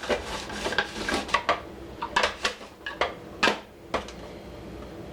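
Cucumbers being sliced on a mandoline: irregular scraping strokes and clacks of the vegetable and blade, about a dozen in quick uneven succession.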